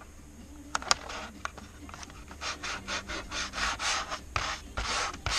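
Fingers rubbing paper masking tape down onto a glider wing's painted composite surface: a couple of small clicks, then a run of quick rubbing strokes, about three a second, in the second half.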